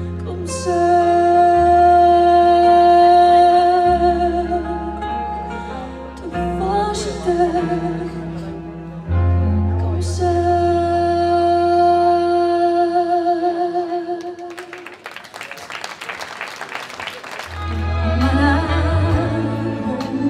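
A woman sings a slow ballad into a microphone over instrumental accompaniment, holding long notes that waver with vibrato at their ends. The voice drops out for a short instrumental passage about three quarters of the way through.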